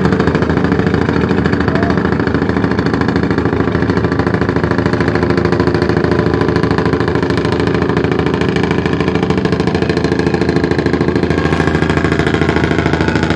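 A small fishing boat's engine running steadily, with a fast, even pulse.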